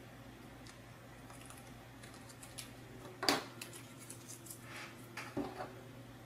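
Small acrylic kit parts being handled: faint scratching and ticks as protective paper is picked off, then a sharp clack about three seconds in and another near the end as the pieces are set down on the table.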